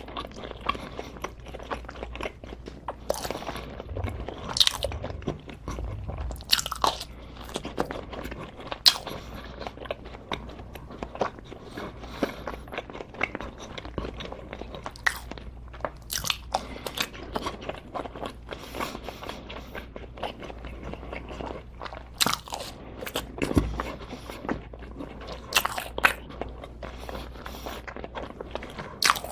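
A person biting and chewing crunchy food close to the microphone, with irregular sharp crunches scattered among continuous chewing.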